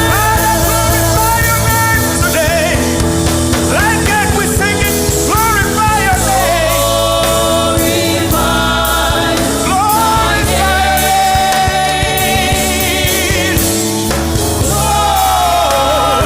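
Gospel music: a singer's wavering, gliding vocal lines over sustained chords and a steady bass.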